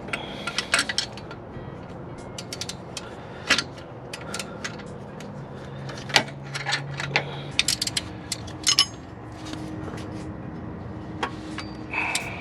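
Ratchet wrench clicking and tools clinking on metal, irregular sharp clicks and knocks, as the alternator mounting bolts are worked loose.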